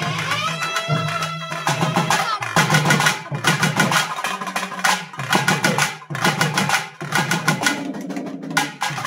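Tamil folk drum ensemble playing a fast, dense rhythm on barrel drums beaten with sticks and hands. A wind instrument plays a gliding melody over the drums for the first couple of seconds, after which the drums carry on mostly alone.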